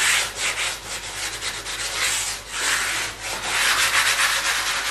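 A chunky stick of white chalk rubbed back and forth over a spray-painted chalkboard surface, a dry scraping in repeated strokes, shorter at first and longer sweeps in the second half. This is the chalk being worked over the whole new chalkboard paint to season it before use.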